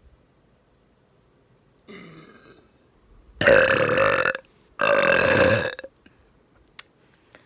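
A woman burping loudly up close to the microphone: two long, deep belches of about a second each, one right after the other, with a fainter sound shortly before them.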